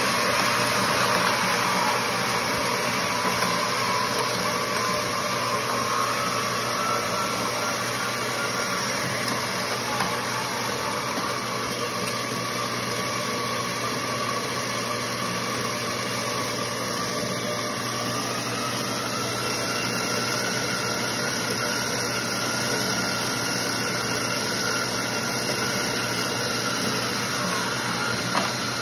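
Treadmill running: a steady motor whine and belt noise, the whine rising slowly in pitch over the first several seconds and again a little past halfway. A single short knock near the end.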